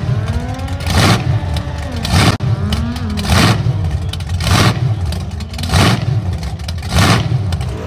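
A 1000+ hp supercharged car engine revving hard over and over. It peaks about once a second, about seven times, with the pitch gliding up and down between the peaks.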